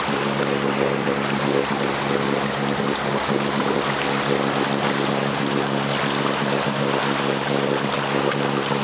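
A motorboat's engine running steadily at cruising speed, a constant low drone, with water rushing and splashing along the hull.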